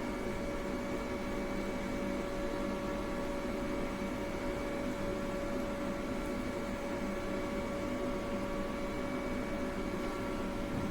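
High-speed milling spindle on a CNC machining centre running at a constant speed: a steady whine with several higher tones above it.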